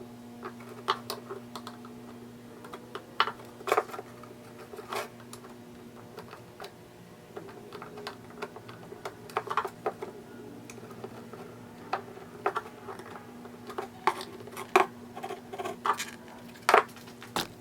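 Scattered clicks, taps and scrapes of hand work on a plastic motorcycle windscreen, as mounting pieces are pushed into its holes with a screwdriver whose tip is wrapped in electrical tape. A steady low hum runs underneath.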